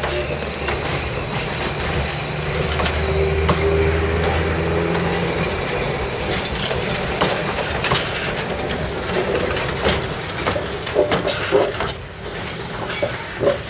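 Narrow-gauge train running on the line: a low steady drone for the first five seconds or so, then a run of irregular clanks and knocks from the wheels and track.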